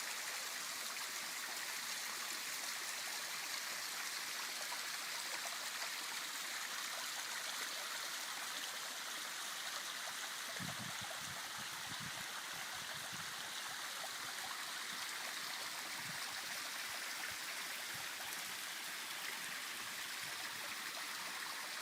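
Stream water flowing and trickling in a steady, even rush, with a few soft low thumps about halfway through.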